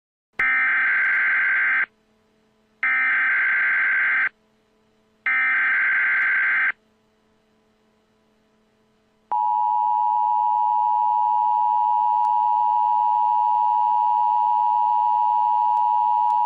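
Emergency Alert System tones. Three short bursts of screechy digital SAME header data, about a second apart, are followed about nine seconds in by the steady two-tone attention signal, which holds to the end.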